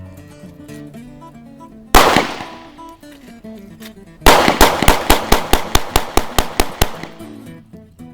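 Beretta PX4 Storm semi-automatic pistol firing: a single shot about two seconds in, then a rapid string of about fifteen shots, roughly six a second, emptying the first magazine. Background music plays underneath.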